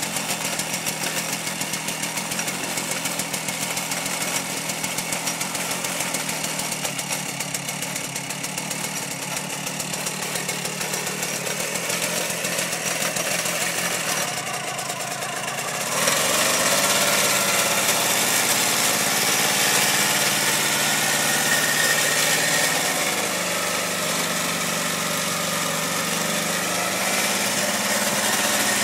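Agria single-axle walking tractor's engine running steadily while it pulls a plough through garden soil, getting noticeably louder about halfway through.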